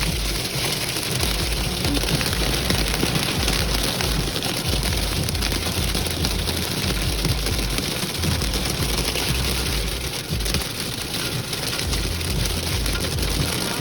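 Hail and very heavy rain pelting down, a dense, steady hiss of impacts.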